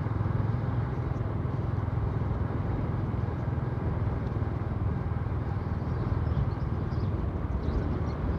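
Steady low drone of a vehicle engine running at an even cruising speed, mixed with road noise as it travels along a street.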